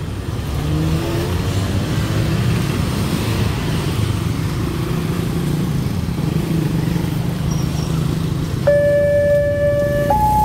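Motorcycles and cars passing over a level crossing with engines running. Near the end the crossing signal's electronic warning alarm starts: a steady tone that jumps to a higher tone about a second and a half later, the signal that a train is coming.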